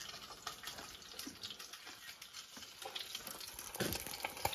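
Fish deep-frying in a pan of hot oil: a steady sizzle with small crackles.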